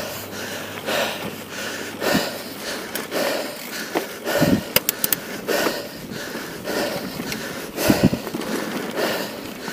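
Mountain bike rolling over a rocky dirt singletrack: tyres crunching on loose stones and the bike rattling, with a few harder knocks from bumps, wind noise on the microphone, and the rider breathing hard.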